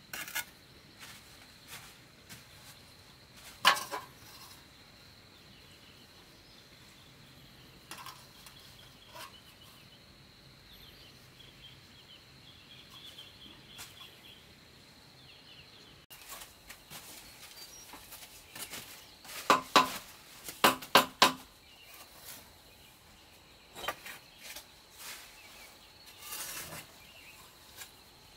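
Mason's trowel working cement mortar on a brick wall: scattered sharp clinks and knocks of the steel blade on brick and mortar, with a quick run of loud taps about twenty seconds in.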